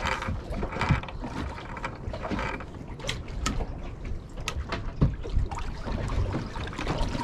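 Spinning fishing reel being wound, its gears and mechanism clicking irregularly.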